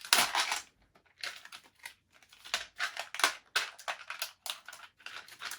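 Stiff plastic blister packaging crinkling and crackling in irregular bursts as it is pulled open and handled.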